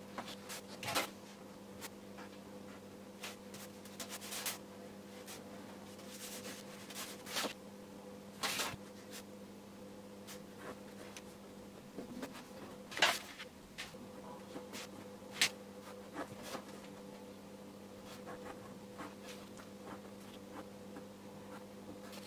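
Scattered short scratches and light taps of a fine brush and fineliner working on watercolour paper, a few at a time with gaps between, over a steady low hum.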